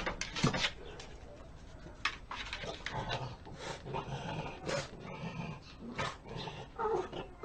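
A French bulldog jumps up and paws at a wooden door. Its claws scratch and knock against the wood in a string of short sounds, with short noises from the dog in between.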